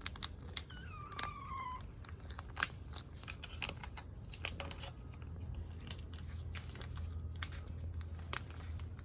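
A cat meows once about a second in, a short call falling in pitch, among scattered crunching clicks, over a steady low hum.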